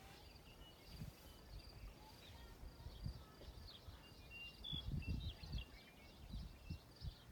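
Quiet outdoor ambience: small birds chirping over a steady high trill, with irregular low thumps and rumble that peak about five seconds in.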